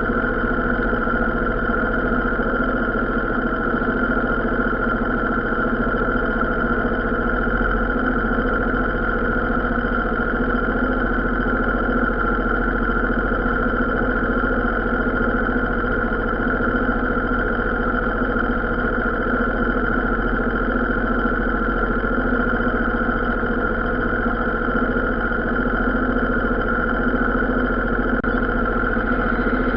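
An engine idling steadily, with a constant hum that does not change.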